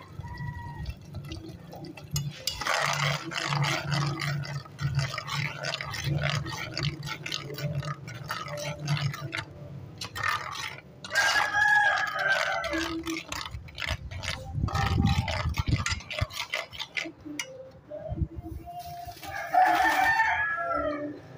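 A rooster crowing three times, several seconds apart, over small clinks of a spoon stirring sauce in a metal cooking pot.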